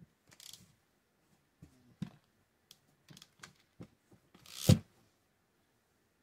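Metal tools and fishing-reel parts handled during disassembly: scattered light clicks and taps as a hex key works a screw and the crank handle comes off, with one louder sharp clack about four and a half seconds in.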